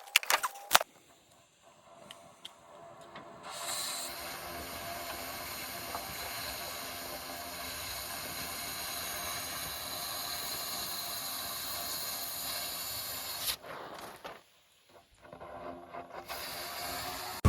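A steady hissing noise. It starts a few seconds in, cuts out briefly about three-quarters of the way through, then comes back. A few sharp clicks come before it.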